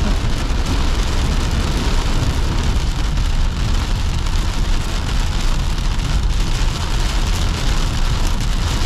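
Heavy thunderstorm rain falling on a car's windscreen and roof, heard from inside the cabin as a steady, dense hiss with a low rumble underneath.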